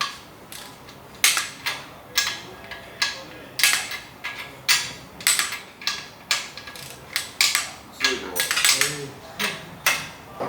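Ratchet wrench clicking in short strokes: sharp metallic clicks one or two a second, tightening the crankshaft main bearing cap bolts of a 6.2L V8.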